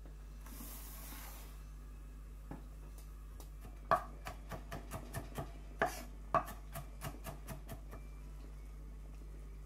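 Kitchen knife chopping onion on a wooden bamboo cutting board: a quick run of sharp knocks, about four a second, starting about four seconds in and stopping near the end.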